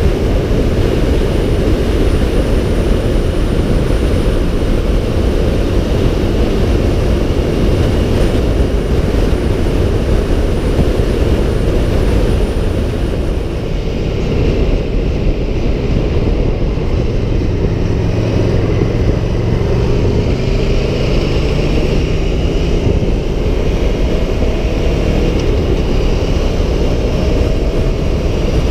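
Aprilia Tuono 1100 Factory's V4 engine running under way, with heavy wind rush on the microphone. Past the middle the high hiss eases for a few seconds, then the engine note climbs slowly as the bike accelerates.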